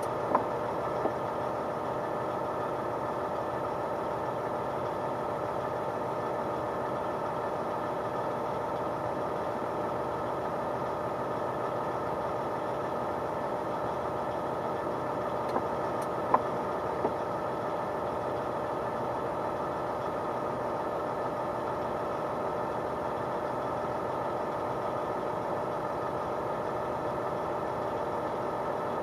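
Steady drone of the Mack CXU613 truck's diesel engine running, with a few brief clicks near the start and again a little past halfway.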